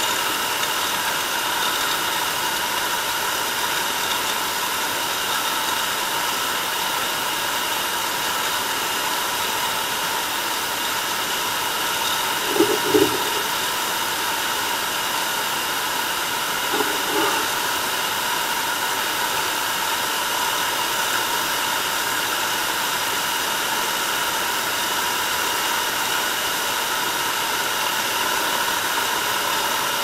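Steady hiss with faint, steady whining tones, the running noise of an underwater camera rig on the seabed. Twice, about thirteen and seventeen seconds in, comes a short muffled knock.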